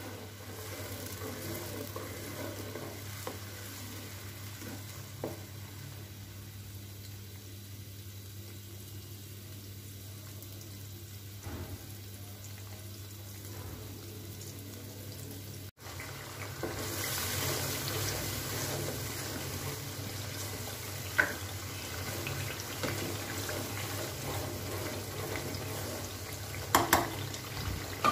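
Ground onion paste sizzling steadily in hot oil in a karahi as it is fried toward light brown, with the spatula stirring and now and then clicking against the pan. After a brief dropout about halfway through, the sizzle is louder.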